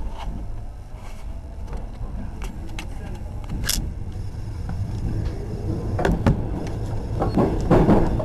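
KORAIL Line 1 electric commuter train: a steady low rumble with scattered clicks and knocks, a short hiss of air a little under four seconds in. The rumble grows louder toward the end, with heavier knocks and rattling from about six seconds.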